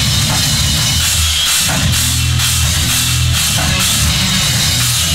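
Live metal band playing, from an old Hi8 camcorder recording: drums with crashing cymbals and distorted guitars, loud and dense. It is played back through a noise gate and a 10-band graphic EQ with the midrange cut.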